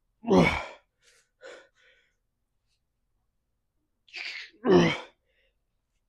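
A man's strained exhalations while lifting dumbbells: a short grunt falling in pitch about half a second in, then a sharp breath and a second falling grunt about four to five seconds in.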